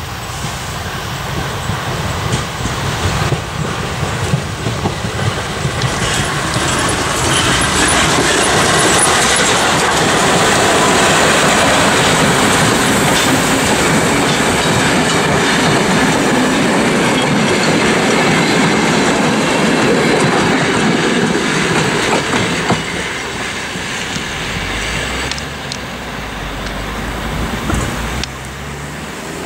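VR Class Tk3 steam locomotive and its passenger coaches running past on the track, wheels rattling over the rails. It grows louder over the first several seconds, stays loud while the coaches pass, then fades as the train draws away.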